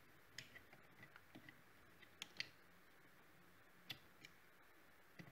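Near silence broken by a scattering of faint, irregular clicks and light taps: a plastic bracket being handled and hooked over cables.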